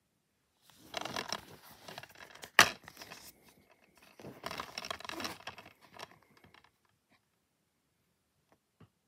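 Clear plastic DVD keep case being handled and opened: scraping and rattling of the plastic, with one sharp snap about two and a half seconds in as the case pops open. More handling follows, then a few faint clicks near the end.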